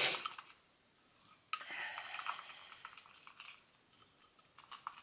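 A spoon stirring and scraping a thick paste of powdered peanut butter and water in a small ceramic bowl. There is about two seconds of steady scraping from about a second and a half in, and a few light clinks at the start and near the end.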